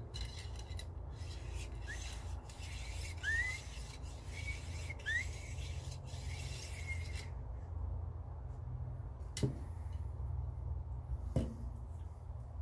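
Cloth cleaning patch rubbed against the steel of a stainless Marlin .22 rifle: a scratchy rasping rub with a few short rising squeaks, stopping about seven seconds in. Then two sharp knocks a couple of seconds apart.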